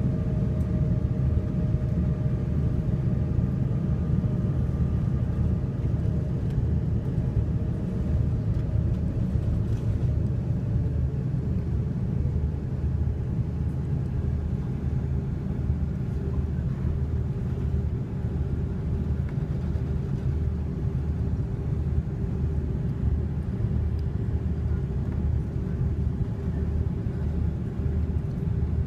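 Airbus A330 taxiing and lining up for takeoff, heard inside the cabin: a steady low rumble with the engines' idle whine on top, its pitch easing slightly lower over the first ten seconds and then holding steady.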